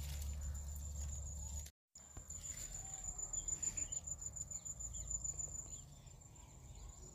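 Insects trilling steadily in one high, even tone over a low rumble of wind on the microphone. The sound cuts out briefly a little under two seconds in, then a run of quick scratchy rustles as leaves and vines brush against the microphone.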